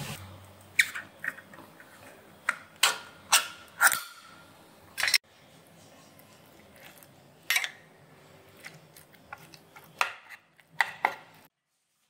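A spoon tapping and scraping against a plastic plate in a series of sharp clicks, with a few short squeaks among them.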